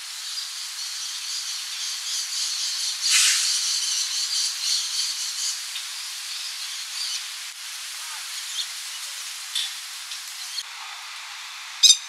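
Steady outdoor hiss with a high, shrill chorus that swells about three seconds in and fades by about seven seconds. Near the end a masked lapwing chick gives one short, sharp call, the loudest sound.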